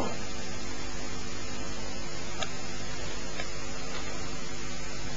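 Steady hiss with a faint low hum: the room tone and recording noise of an old camcorder, with two faint clicks about a second apart midway.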